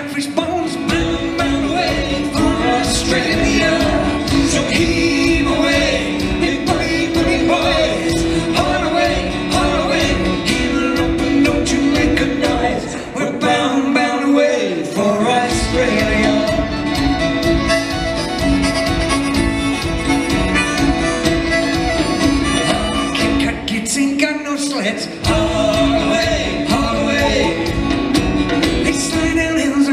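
Live Celtic band playing an up-tempo song: fiddle, acoustic guitar, upright bass and drum kit, with singing. The drums and bass drop out briefly twice, about halfway through and again near the end.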